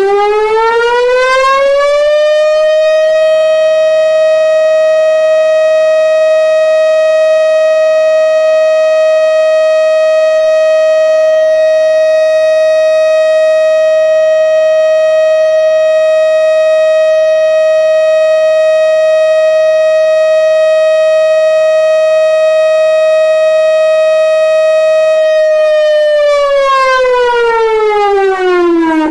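Civil defence warning siren sounding one long steady tone. It winds up in pitch over the first couple of seconds, holds level for most of its length, then winds down near the end. A single unbroken tone like this is the pattern used for the all-clear signal.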